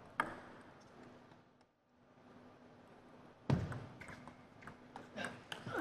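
Table tennis rally in a large hall: after a mostly quiet stretch with a single click, a sharp knock about three and a half seconds in, then a quick series of short clicks of the ball on the bats and the table.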